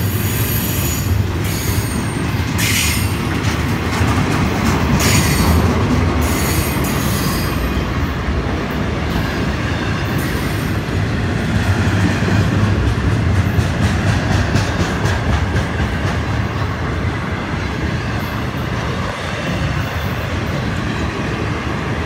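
Intermodal freight train of double-stack container well cars rolling past close by: a steady rumble of wheels on rail with clacking, and a few sharp high-pitched sounds in the first seven seconds or so.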